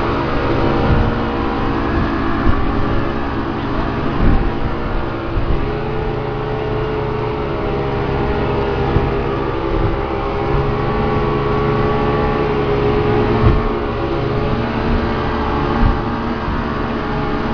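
Speedboat's outboard motor running steadily at speed, a continuous drone over the rush of water and wind.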